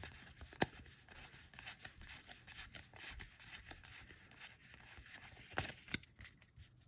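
Magic: The Gathering trading cards slid against one another by hand as a pack is flipped through, giving a faint scratchy rubbing with a few sharp card snaps, one under a second in and two louder ones near the end.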